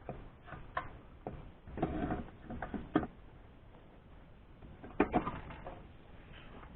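Small engine parts being handled on a workbench: scattered light metal clicks and knocks, with a short scuffling patch about two seconds in.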